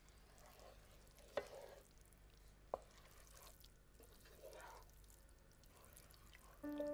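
Faint swishing of a wooden spoon stirring thick, creamy risotto in a stainless steel pan, as the butter and grated Parmesan are worked in. Two light, sharp knocks come in the first three seconds, and soft music begins near the end.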